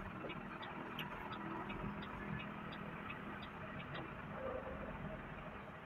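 Car turn-signal indicator ticking about three times a second over the steady engine and road noise inside the cabin; the ticking stops about four seconds in as the turn is completed.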